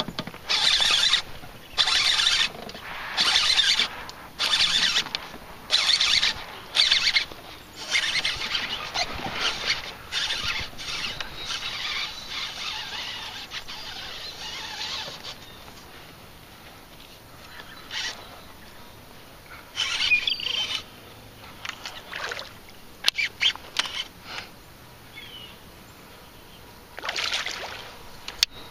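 Canoe paddle strokes in the water, about one a second for the first several seconds, giving way to softer water sounds and a few scattered splashes.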